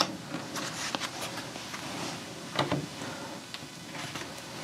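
Tarot cards being handled and drawn from a deck: a few soft flicks and rustles of card stock.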